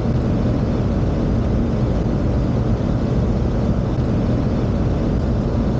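Steady noise inside a Boeing 737 flight deck on final approach: airflow and engine sound, even and unbroken, heaviest in the low end.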